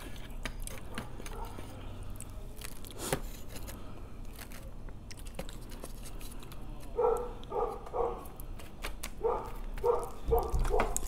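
Eating at the table: chopsticks clicking and tapping against a styrofoam takeout box, with chewing. In the second half come short high squeaks in two runs, about three, then about five more close together near the end.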